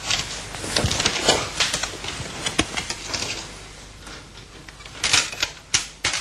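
A rapid, irregular run of sharp clicks and clatters, like small hard objects being handled, thinning out in the middle, with a few louder clicks near the end.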